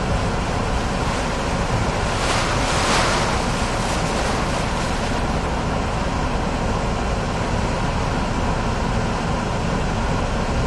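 Hurricane-force wind and heavy rain heard from inside a car, blowing steadily against the vehicle, with a stronger gust about two seconds in.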